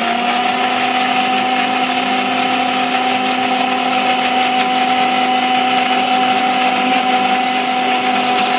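Bajaj mixer grinder running at full speed with its small steel jar full of spices, a loud, steady motor hum with a higher tone over it and a grinding rattle.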